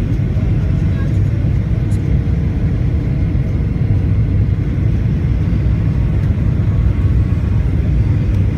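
Steady low rumble of a Boeing 737's wing-mounted jet engines and airflow, heard inside the cabin by a window over the wing, with a faint steady whine above it.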